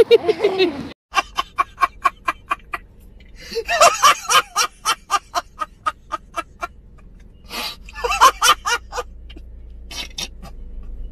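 A man laughing hard in rapid 'ha-ha-ha' pulses, in four fits separated by short breaths.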